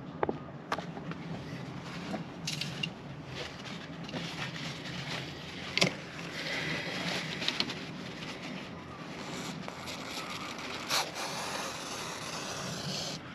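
Paper towel rustling against a window frame with a few sharp clicks, then an aerosol can of silicone spray hissing steadily for several seconds from about six seconds in, cutting off abruptly near the end.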